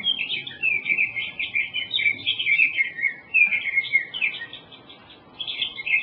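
Sage thrasher song played from a recording through loudspeakers: a long, rapid run of varied, high warbled phrases that goes on and on, with a short break near the end before it picks up again.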